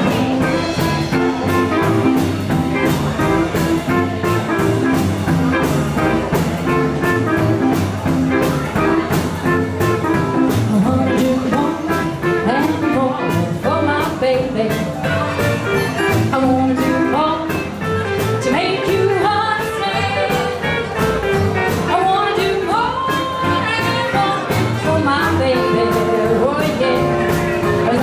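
Live band playing: electric guitar, acoustic guitar, upright bass and drum kit with a steady beat, and a singer.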